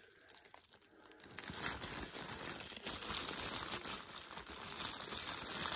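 Clear plastic poly bag crinkling and rustling as it is handled and pulled open, starting after a quiet first second or so.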